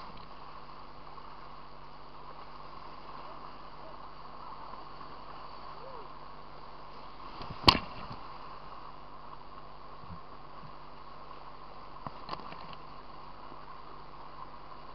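Whitewater river rushing steadily right at the water's surface, with one sharp loud knock about eight seconds in and a couple of lighter knocks a few seconds later.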